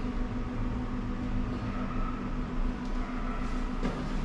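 Low, uneven wind rumble on the microphone with a steady low hum underneath.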